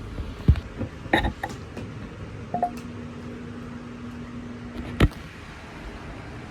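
Clicks and knocks of a hardwired smoke alarm and its power connector being handled and plugged in. About two and a half seconds in, a low steady hum starts and runs for about two and a half seconds, ended by a sharp click.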